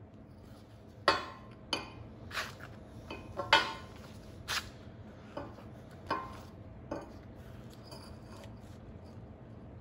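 Short galvanized steel tubes clinking and knocking against a steel plate and against each other as they are handled and set down. The sharp metallic knocks come about once a second, loudest about a second in and again about three and a half seconds in, and stop about seven seconds in.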